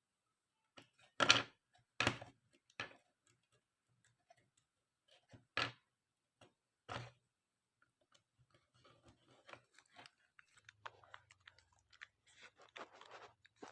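Plastic back cover of a Morpho E2 fingerprint scanner being pressed onto the casing and snapping into place: five sharp clicks in the first seven seconds, then faint small ticks and handling rustle.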